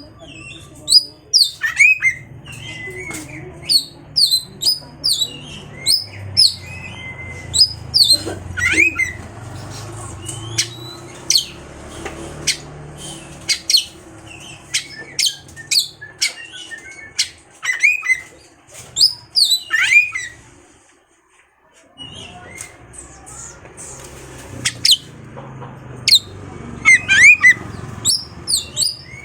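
Oriental magpie-robin (kacer) singing loudly: quick runs of sharp, high, repeated notes mixed with rising whistles. The song breaks off briefly a little after two-thirds of the way through, then resumes. It is a lure recording meant to provoke a quiet magpie-robin into answering.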